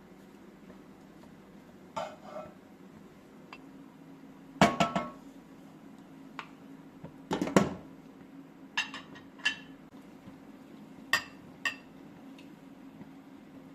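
Dishes and utensils clinking and knocking together: a series of separate sharp clinks with short ringing, the loudest two near the middle, over a steady low hum.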